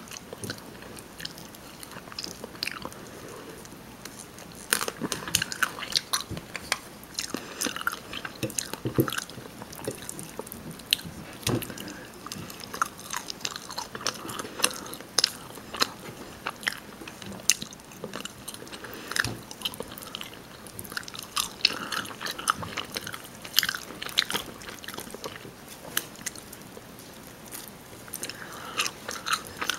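Close-miked mouth sounds of someone biting and chewing rotisserie chicken: irregular sharp clicks and smacks that come thicker and louder after the first few seconds.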